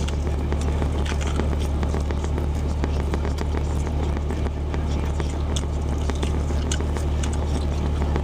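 Crunchy bites and chewing of crispy-coated fried chicken, a scatter of irregular crackling crunches, over a steady low hum.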